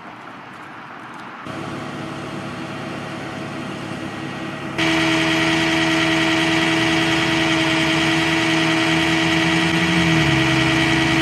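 A vehicle engine idling with a steady hum, quieter at first and much louder from about five seconds in; near the end one of its tones drops lower.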